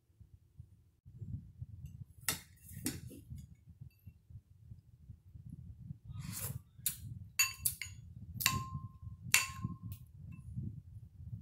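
Ceramic soup spoon clinking against a ceramic bowl, twice a little after the start and then several times in quick succession, some strikes ringing briefly. Low mouth sounds of eating run underneath.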